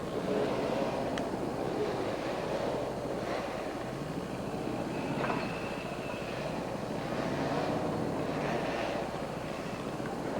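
Chainsaw running under load as it cuts into a standing tree, its engine pitch wavering up and down.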